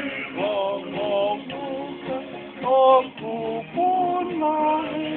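Music with a sung vocal melody.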